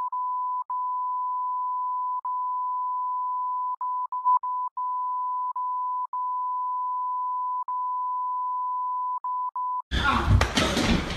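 Censor bleep: a long, steady, single-pitched beep broken by a dozen or so brief gaps. It stops about ten seconds in, and a loud noisy sound takes over near the end.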